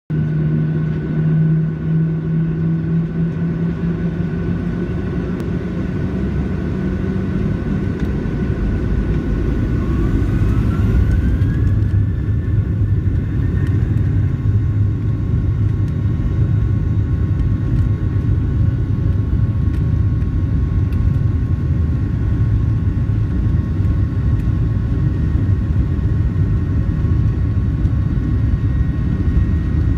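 Jet airliner's engines and rumble heard from inside the cabin on the ground: a steady hum at first, then about ten seconds in a whine rises in pitch and the rumble grows louder and holds steady as the engines spool up for take-off.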